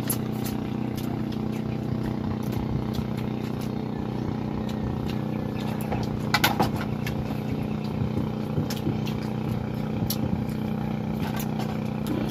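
A small engine running steadily in the background, with scattered sharp clicks and cracks as cooked crab shells are broken apart by hand, a small cluster of them about halfway through.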